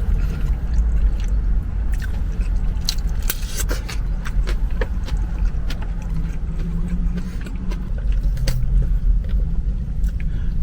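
Close-miked eating of a burrito, with scattered sharp clicks of chewing and wrapper handling over a steady low rumble.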